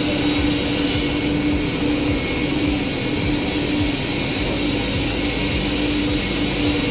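Steady machinery noise of a knit-dyeing factory floor: a loud, even rushing noise with a constant hum running through it.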